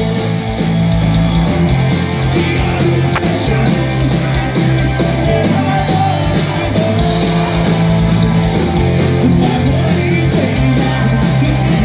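Rock band playing live: distorted electric guitars, bass and drums at full volume with a singer's voice through the PA.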